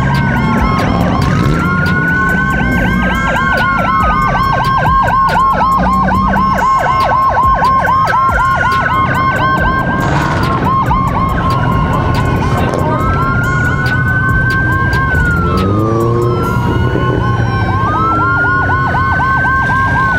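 Police sirens sounding together: a slow wail that rises and falls about every two to three seconds over a fast warbling yelp. A vehicle engine rumbles steadily underneath.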